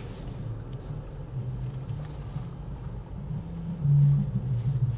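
A vehicle's engine running low and steady as it rolls slowly along a dirt drive, swelling louder for a moment about four seconds in.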